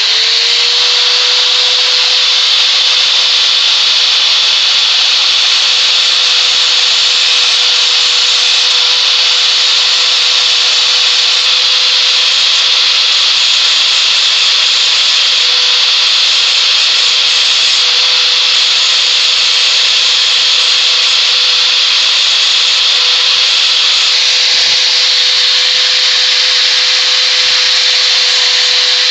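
Angle grinder running at full speed with a steady whine, its disc grinding the broken steel part of a homemade screw jack. This cleans up the break and cuts a chamfer ready for welding.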